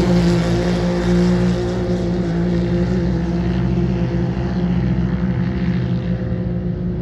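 Off-road side-by-side (UTV) race car engine running hard at high, steady revs as the car drives away over the sand, its sound fading slowly with distance.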